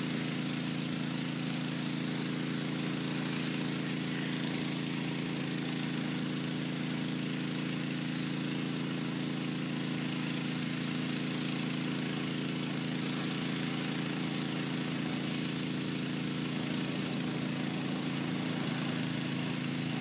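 Sewer jetter's engine running steadily at constant speed, a continuous even drone.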